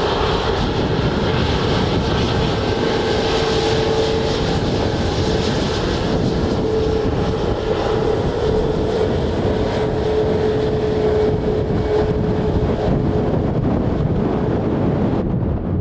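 Jet airliner engines running, with a steady whine that gradually fades and is gone about thirteen seconds in, over a constant low rumble of wind on the microphone.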